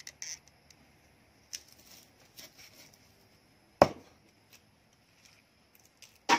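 Two heavy single chops of a knife on a chopping board, about two and a half seconds apart, the second near the end, with light clicks and rustling between.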